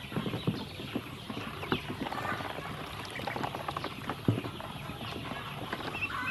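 Ducklings pecking and stepping about in a plastic tub: irregular light taps and clicks of bills and feet on the plastic, with an occasional short peep.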